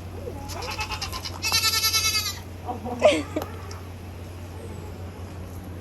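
An animal calling: two wavering bleat-like cries about half a second apart, then a short, sharp, falling call about three seconds in.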